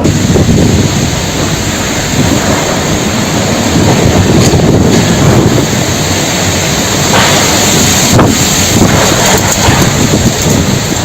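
Strong blizzard wind blowing hard against the microphone: a loud, steady rush with a couple of short crackles about four and eight seconds in.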